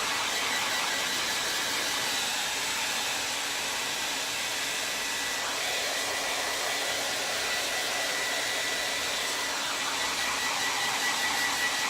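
Hair dryer running steadily: a constant rush of air with a thin high whine.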